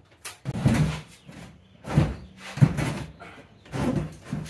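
Several separate knocks and thumps on a steel tool chest, like its drawers and panels being handled and bumped.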